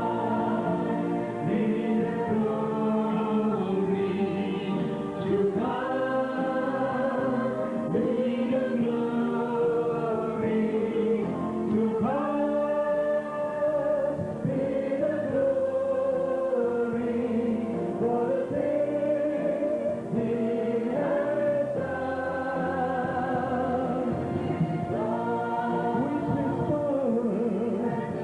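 A choir singing a slow song in long, held phrases.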